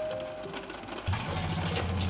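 A music note fades out, then about a second in a small electric water pump starts with a steady hum and water begins running from a tap into a metal pot.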